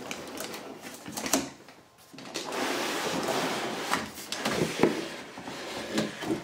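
Cardboard packaging being handled: box flaps and cardboard inserts scrape and slide against each other for a couple of seconds in the middle, among several sharp taps and knocks.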